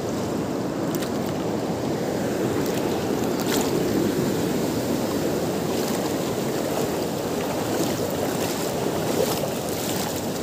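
Steady rushing of a river flowing over a stony bed, with a few faint clicks.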